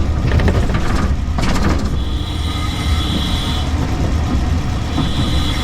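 DC electric VW conversion on the move: a steady low rumble of the drivetrain and road, with a thin high whine that comes in about two seconds in, drops out, and returns near the end.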